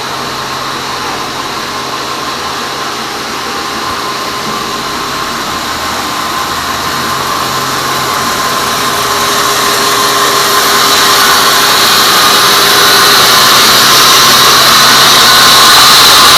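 Sawmill band saw running and sawing teak timber: a continuous mechanical whine over a hissing sawing noise that grows steadily louder from about four seconds in.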